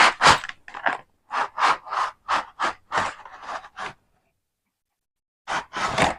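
Cardboard keyboard box and its packing scraping and rustling as the box is opened and the keyboard pulled out. There is a run of short scrapes, about three a second, for the first four seconds, then a pause, then two more scrapes near the end.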